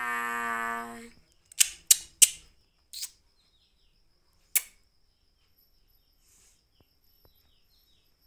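An infant's cry for about a second, then five sharp, loud clicks spread over the next three seconds, followed by near silence.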